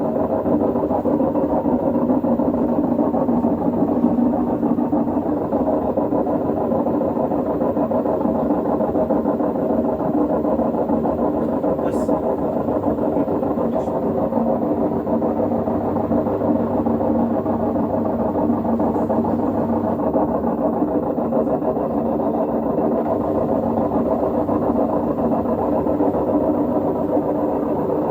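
LG direct-drive washing machine running, a steady loud mechanical hum and rumble with no break.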